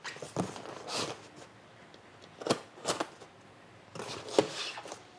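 Cardboard shipping box being opened by hand: a knife cutting the packing tape and the box's flaps and sides scraping and rustling, in a few short scrapes and taps.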